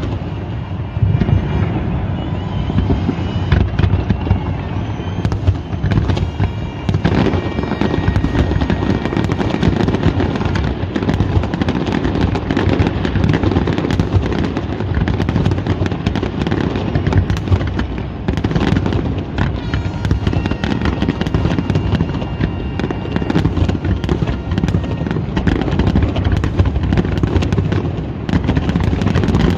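Large fireworks display: a continuous barrage of shells bursting, a dense rumble of overlapping booms and crackle with no pause.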